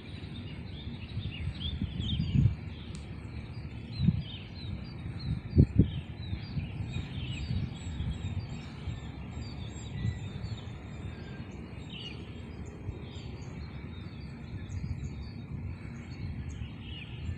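Many small birds chirping in short, repeated calls over a steady low rumbling background noise. A few louder low bumps in the first six seconds are the loudest sounds.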